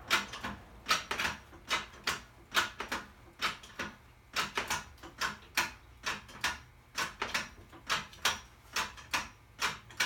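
Hydraulic floor jack being pumped by its handle: a steady run of sharp clicking strokes, about two to three a second, often in pairs.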